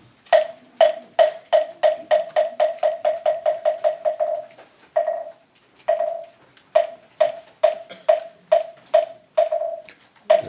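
Moktak (Buddhist wooden fish) struck with a mallet, giving hollow, pitched knocks. The knocks speed up into a fast roll, break off briefly about four and a half seconds in, then resume as slower, evenly spaced strokes.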